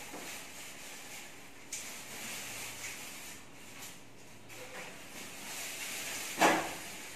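Leafy green vegetable stems being stripped and snapped by hand, making soft uneven rustling. One sharp knock about six and a half seconds in is the loudest sound.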